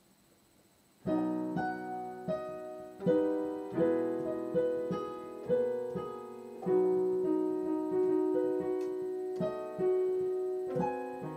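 Solo piano being sight-read. After about a second of near silence the playing begins, a run of chords and single notes, each struck and left to ring and fade.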